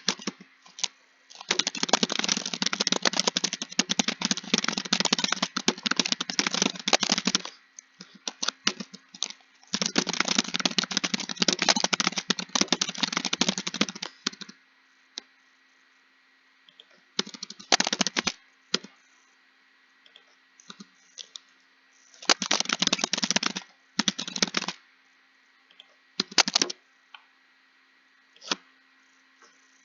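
Computer keyboard typing in fast runs of key clicks, with pauses between runs growing longer and bursts shorter in the second half.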